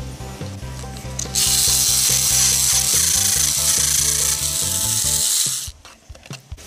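Plarail toy train's small electric motor and plastic gearbox whirring for about four seconds, switched on suddenly and off suddenly, on a test run after a replacement 8-tooth pinion was fitted; background music plays under it.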